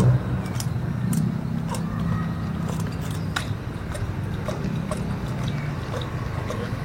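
A 24-inch pure trials bicycle being ridden and hopped: sharp, irregular clicks and knocks, a dozen or so over a few seconds, over a steady low rumble.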